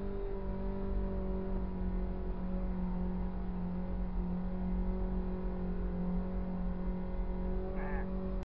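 Pickup truck engine running at steady revs under load in snow, its pitch holding even. The sound cuts off suddenly near the end.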